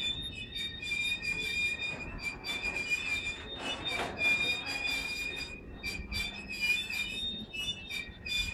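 Freight train of tank wagons rolling past close by, its steel wheels squealing on the rail in a high, steady whine that breaks off and comes back. Quick clicks and a low rumble run under the squeal.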